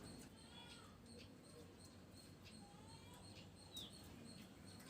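Faint bird chirps over a near-silent background: a few short calls, one of them a quick high downward sweep a little before the end.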